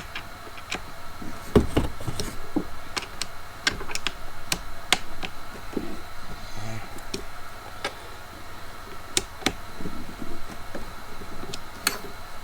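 Scattered clicks and light knocks of plastic and metal parts being handled while fitting the handle onto a string trimmer, with one heavier thump about one and a half seconds in.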